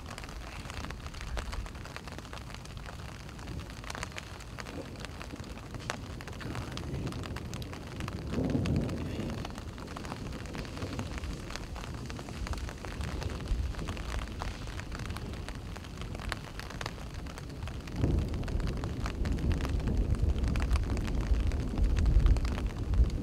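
Outdoor ambience dominated by a low wind rumble on the microphone, swelling briefly about eight seconds in and growing stronger from about eighteen seconds in, with scattered faint ticks.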